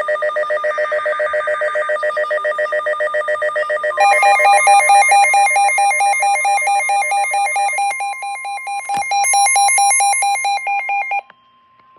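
Electronic emergency alert tones for a severe thunderstorm warning: a rapid trilling alarm. About four seconds in, a louder pulsing alarm and a steady long alert tone join it. The pulsing alarms cut off about eleven seconds in while the steady tone holds, and there is a single click about nine seconds in.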